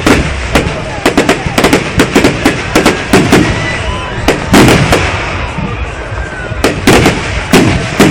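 Fireworks going off: a rapid series of sharp bangs, at times several a second, with a heavier cluster about halfway through, over a continuous crackling rumble of further bursts.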